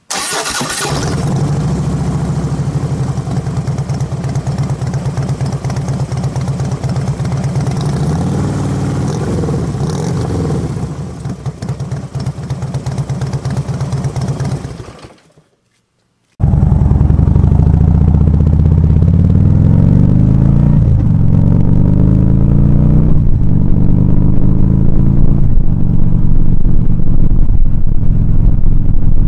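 Harley-Davidson Street Glide Special's V-twin engine through Rush Big Louie slip-on mufflers with the baffles removed, which makes it very loud. It idles with a couple of throttle blips, then fades out. After a short gap it is heard under riding, pulling up through the gears with a few shifts and running even louder.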